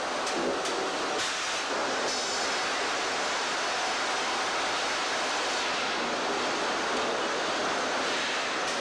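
Sawmill machinery running while timbers move along the saw line: a steady, even rush of noise, with a few light clicks in the first two seconds.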